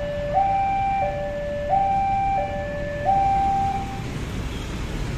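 Railway level-crossing warning alarm sounding a two-tone high-low signal, switching tone about every two-thirds of a second. It cuts off about four seconds in as the crossing reopens after the train has passed, over a low rumble of waiting traffic.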